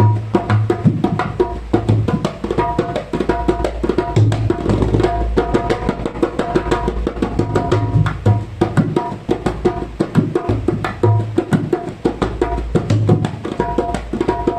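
Dholak played solo: a fast, steady stream of hand strokes on the high head, with deep bass strokes on the low head recurring every second or so.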